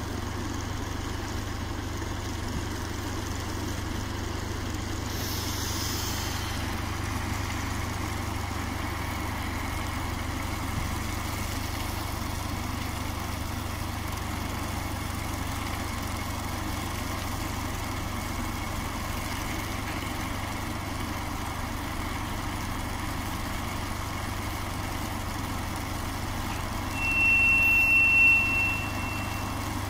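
Steady low rumble of a diesel shunting locomotive and SM-2M snow-clearing train working slowly along the tracks. A brief hiss comes about five seconds in. Near the end a single high-pitched whistle signal sounds for about two seconds, the loudest sound.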